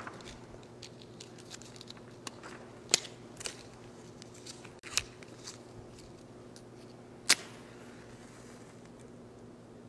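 A few sharp clicks and small ticks from a hand-held lighter being struck to light altar candles, three of them standing out, over a low steady room hum.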